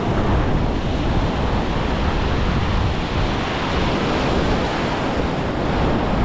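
Ocean surf breaking and washing steadily, with wind buffeting the microphone.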